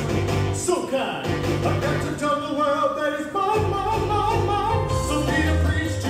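Recorded song playing: a singing voice over band accompaniment with a steady bass line and beat, the backing track the puppets lip-sync to.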